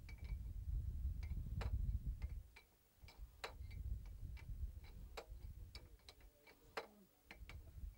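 Irregular sharp clicks, a few a second, over a low rumble that fades out about two and a half seconds in.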